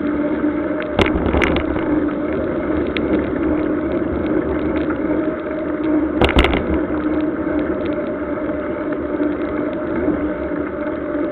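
Mountain bike rolling over wet asphalt: a steady hum of knobby tyres and road spray, with sharp knocks of the bike over bumps about a second in, again half a second later, and about six seconds in.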